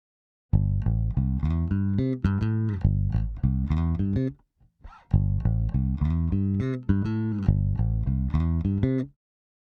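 Fender Jazz bass played through an EBS MultiComp compressor pedal: two phrases of plucked notes, each about four seconds long, with a short break between them.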